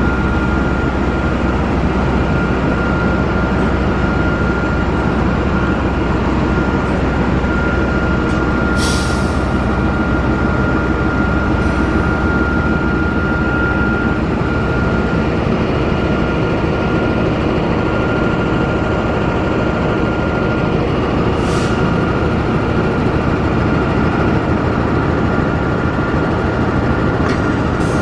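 CC 206 diesel-electric locomotive's diesel engine running steadily and loud while it warms up, with a constant high whine over the engine sound. Four short hisses break in at intervals.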